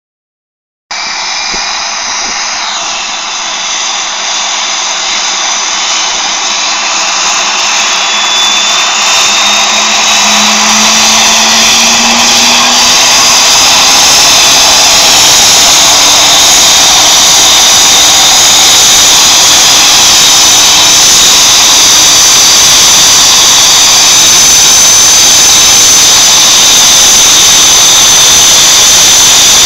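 An air ambulance helicopter's turbine engines and rotor running up on the ground before take-off: a steady whine with a high-pitched note, growing louder over the first dozen seconds or so, then holding steady.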